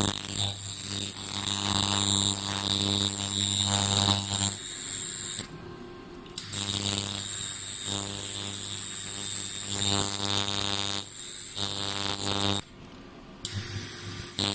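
Ultrasonic cavitation head of a vacuum roller cavitation machine running with water on its face: a steady electric buzz with a high whine and a hiss. It cuts out twice for about a second and starts again.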